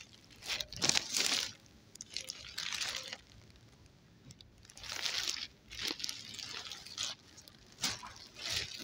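Clear plastic packaging around a pillow crinkling in irregular bursts as a hand presses and handles it.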